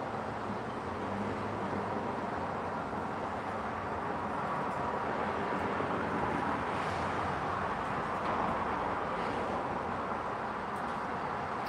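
Steady outdoor background noise with no distinct events, swelling slightly around the middle.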